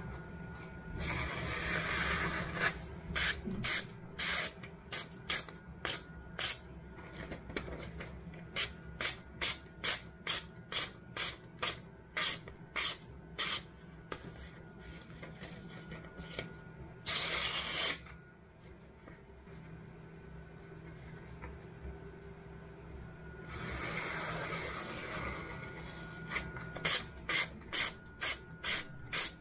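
Sharpened chef's knife slicing through a sheet of glossy magazine paper, a paper test of the edge: runs of quick, crisp swishes, about two a second. Now and then a longer rustle of the paper.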